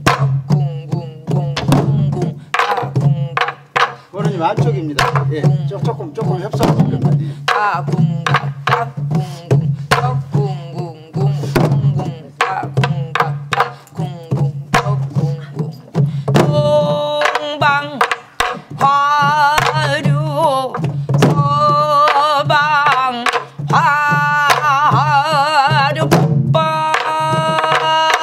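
A Korean sori-buk barrel drum is struck with a wooden stick in a steady pansori rhythmic cycle. About halfway through, a woman's voice comes in over the drum, singing long notes with a heavy wavering vibrato.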